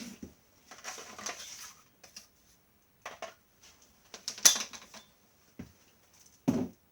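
Vacuum cleaner parts being handled during assembly: rustling, scattered clicks and knocks, a sharp click about four and a half seconds in, and a dull thud near the end.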